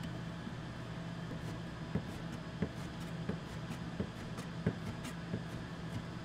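Kitchen work sounds: a steady low machine hum, with scattered light clicks and knocks, about one or two a second, from utensils and cookware being handled.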